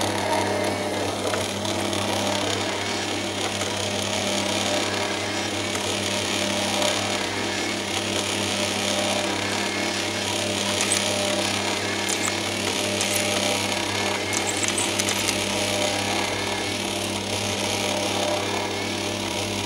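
Bosch MUM 4405 stand mixer running steadily with an even motor hum as it kneads babà dough, building up the dough's strength. A few faint ticks come and go in the second half.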